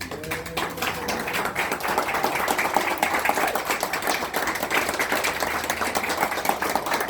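Audience applauding: many hands clapping together in a dense, steady patter that starts suddenly and is louder than the speech around it.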